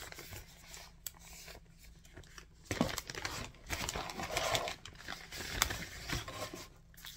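Crinkling and rustling of a plastic zip-top bag and the paper inserts inside it as they are handled and pulled out, in irregular bursts with a few sharp clicks.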